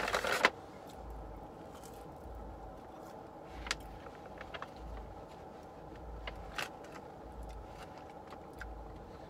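Steady low hum of a car interior, heard from inside the cabin, with a brief burst of rustling at the start as a fast-food wrapper is handled. A few faint clicks and eating noises follow as fries are eaten.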